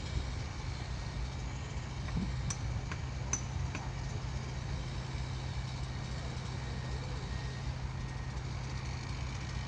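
An engine running steadily with a low hum, with a few faint ticks around three seconds in.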